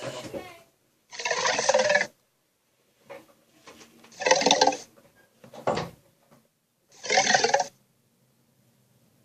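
Cartoon sea monster's vocal effects: a run of short growls, about five, each under a second, with short silences between them.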